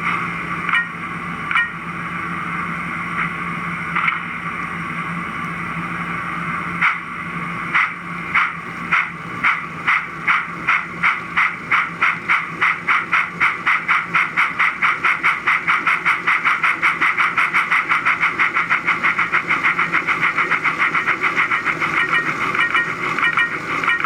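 Model BR 9F steam locomotive's DCC sound decoder through its small onboard speaker, set to four exhaust chuffs per wheel revolution with the articulated exhaust off. A few slow chuffs give way to a steady hiss, then about seven seconds in the chuffs start again slowly and quicken to a fast, even beat as the locomotive picks up speed.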